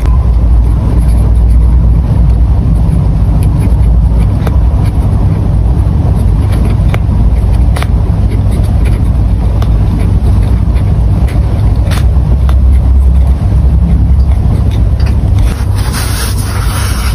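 Close-miked pen writing on paper, with scattered light clicks over a loud, steady low rumble. About 16 s in comes a brighter rustle as the notebook is handled.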